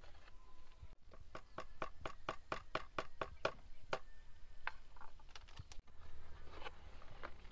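A wooden stick tapping and scraping inside a foil sachet as fungicide powder is scooped out: a quick run of light, sharp taps, several a second.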